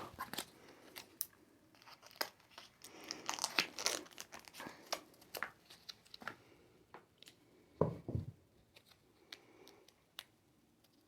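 Plastic snack packaging crinkling and tearing in small, scattered crackles as it is handled and worked open, with one dull thump about eight seconds in.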